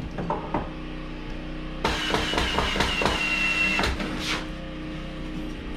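A few light knocks, then about two seconds in a power tool runs in a two-second burst with a whine that sinks slightly as it works into the wood framing.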